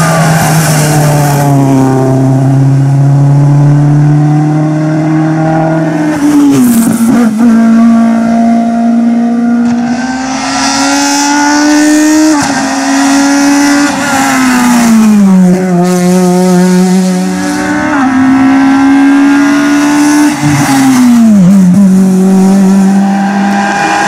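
Several rally cars in turn, among them a Ford Focus WRC, a Volvo C30 and a Citroën C4 WRC, accelerating past. Each engine revs up, then drops sharply at each gear change or lift.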